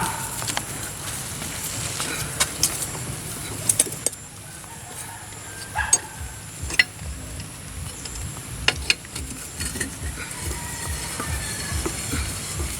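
Scattered sharp clicks and knocks over a steady low rumble, a few of them in quick succession about four seconds in.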